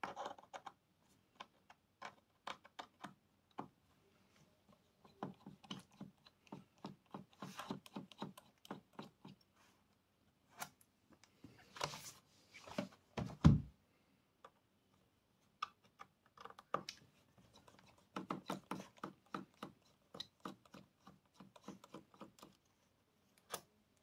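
Scattered small clicks and taps of a precision screwdriver turning out the bottom-case screws of a 2012 MacBook Pro, with hands and tools knocking lightly on the aluminium case and desk. One louder, deeper thump comes a little past halfway.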